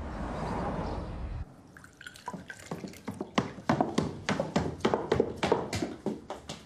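A car drives past on the street, its noise cutting off abruptly about a second and a half in. Then come footsteps on wooden stairs and a wooden floor: quick, sharp shoe taps, about three or four a second.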